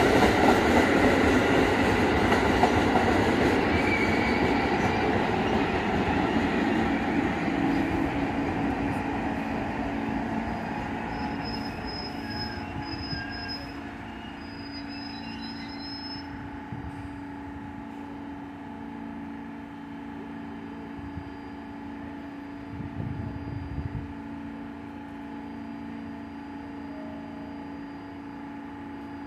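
R46 subway train rolling on the rails and slowing, its rumble fading over about fourteen seconds, with a high squeal around the middle. It then stands with a steady hum and a brief louder burst of noise about two-thirds of the way in.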